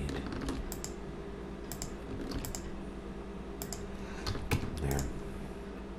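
Computer keyboard keys clicking as shortcuts are pressed: a dozen or so scattered, irregular clicks, some in quick pairs, over a steady low hum.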